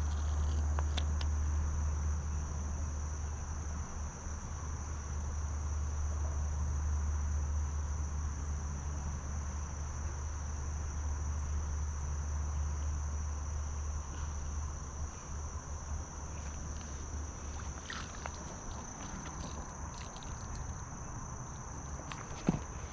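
Steady high-pitched buzzing of insects, over a low rumble that fades out about two-thirds of the way through; a few faint clicks near the end.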